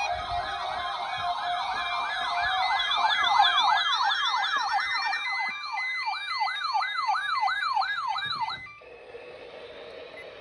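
Weather alert radios sounding their siren-style alert tones together for the weekly test: several overlapping wavering sweeps with beeps above them, speeding up about halfway through. They cut off suddenly near the end, leaving faint receiver hiss.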